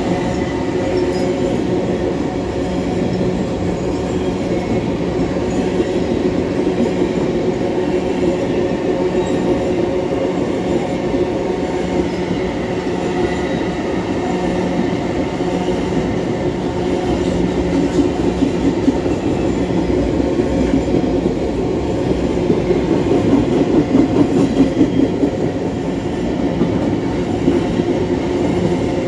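Loaded freight wagons of a steel-products train rolling past, a steady loud rumble and rattle of wheels on rail. The clatter grows rougher and louder for a stretch about two-thirds of the way through.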